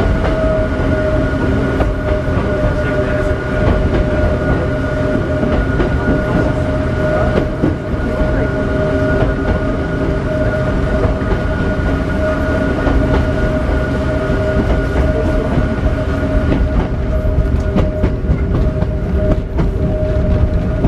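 Hakone Tozan Railway Moha 2 electric railcar running, heard from inside the cab: a steady rumble of wheels on rail with a held, even-pitched whine over it, while the car passes through a tunnel.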